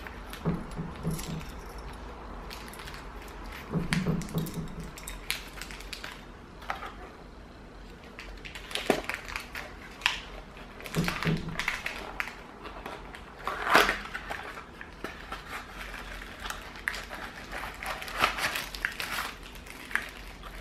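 Handling noise from folding-door hardware: small plastic and metal parts clicking and rattling in the hand, a plastic bag crinkling, and a cardboard box and metal track knocking, in scattered clicks and rustles.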